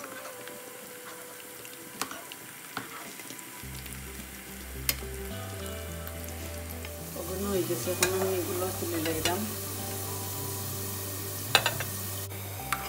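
Food sizzling as it fries in a pan, with a utensil stirring and clicking against the pan now and then; the frying gets louder for a couple of seconds past the middle.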